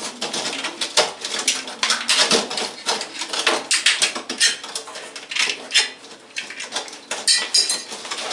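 Sheet metal being bent and fitted by hand, an S-cleat slid onto its edge: irregular metallic clanks, rattles and scrapes.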